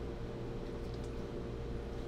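Steady low room hum with a few faint soft rustles and ticks about a second in, from a gloved hand gripping a bullhead wrapped in a paper towel.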